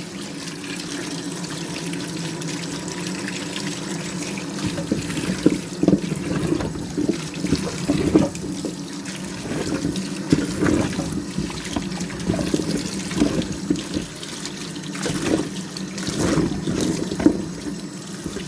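Tap water running steadily into a sink while potatoes are washed under it. From about five seconds in, irregular splashes and knocks come as the potatoes are handled in the water.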